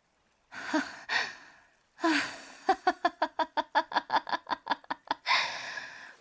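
A character's voice: two short breathy gasps, then a quick run of laughing pulses, about five a second, ending in a breathy exhale.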